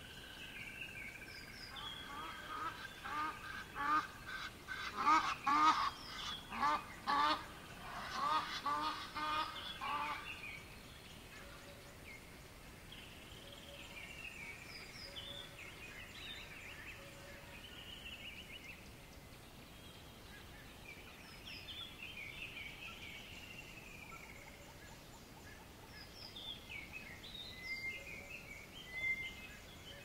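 Geese honking in a quick series of calls, about two a second, for some eight seconds starting a couple of seconds in, loudest in the middle. After that, small birds chirp now and then over a faint steady background hiss, with a few louder chirps near the end.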